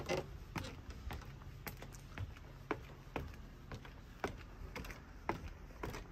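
Footsteps on wooden deck stairs and decking, an even walking rhythm of about two short knocks a second.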